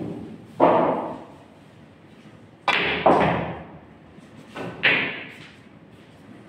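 Pool balls clacking and knocking on a Brunswick pool table during a shot that pots a ball: sharp knocks, each with a short echoing tail. One comes just under a second in, then a pair about three seconds in and another pair about five seconds in.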